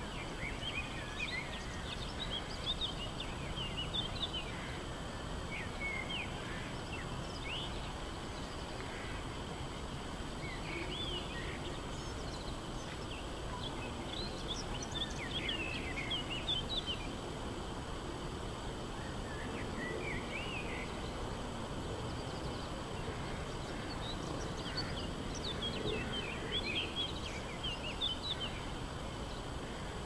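Songbirds twittering in scattered bursts of quick chirps, over a steady low hum of distant town ambience.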